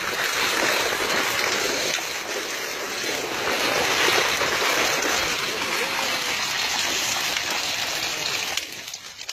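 Water splashing and rushing as a gill net full of small fish is hauled aboard a boat. The splashing drops away sharply near the end.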